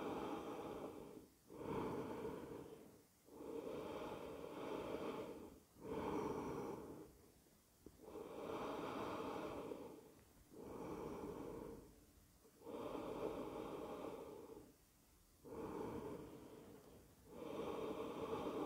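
A man's slow, audible breathing, each breath in or out lasting a second or two, with short pauses between. This is deliberately calmed breathing while resting in a yoga pose.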